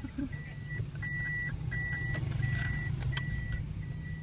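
A car's reverse-gear warning beeper sounding inside the cabin, a steady high beep repeating about every 0.7 s, the sign that the car is in reverse. Under it runs the low rumble of the engine and tyres as the car drives backwards, with a single click about three seconds in.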